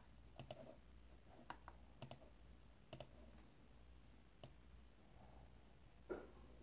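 Computer mouse clicking, a few single clicks and some in quick pairs, faint, with a duller knock near the end.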